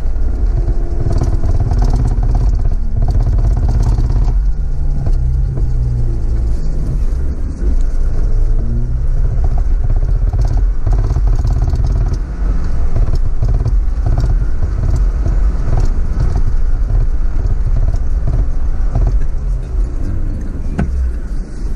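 4x4 SUV's engine running under load in low gear through snow, heard from inside the cabin, its revs rising and falling several times, with frequent crunches and knocks from the tyres and running gear on the snow.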